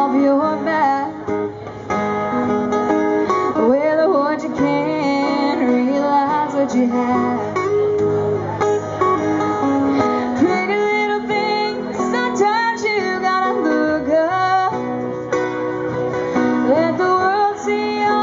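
Live acoustic music: two acoustic guitars strummed together while a woman sings lead into a microphone, her voice coming in and out over the guitars.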